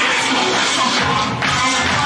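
Loud dance music for a children's group dance, with a pulsing bass beat that comes in about a second in.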